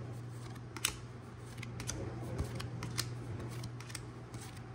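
Pokémon trading cards being flipped through by hand one at a time: irregular soft snaps and slides of card stock over a steady low hum.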